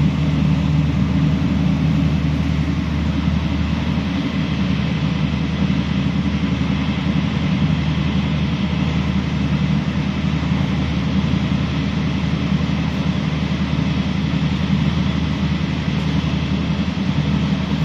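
Steady running noise inside a passenger train carriage travelling at speed: a low, even rumble of the wheels on the rails and the running gear.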